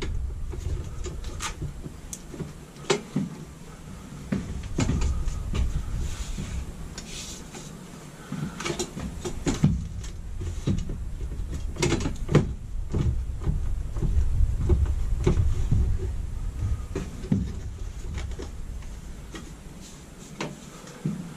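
Irregular clicks, knocks and rubbing of hands working the metal and plastic fittings in the ceiling opening of a camper's rooftop air conditioner, over a steady low rumble.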